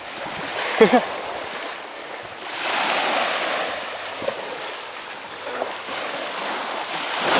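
Ocean surf washing up onto the beach, swelling a couple of seconds in, with two quick pitched cries about a second in.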